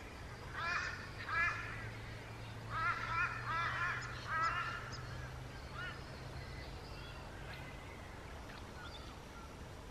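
A bird giving short, repeated calls: two about a second in, then a quick run of four a couple of seconds later, with fainter calls after that.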